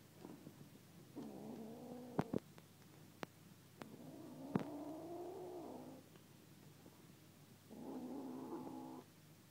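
Young kitten growling, three drawn-out growls with the middle one longest, guarding a chunk of chicken it has found. A few sharp clicks fall between the first two growls.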